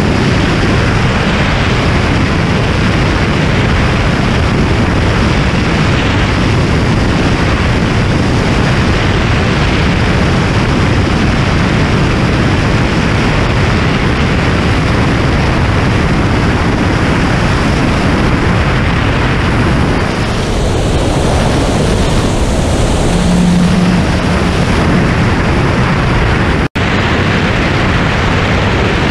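Steady drone of a homebuilt light aircraft's engine and rushing airflow in cruise flight. The sound cuts out for an instant near the end.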